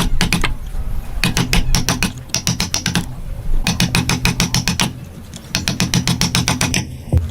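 Hand saw cutting wood in repeated short strokes, each stroke a fast, even chatter of teeth lasting about a second, with brief pauses between strokes.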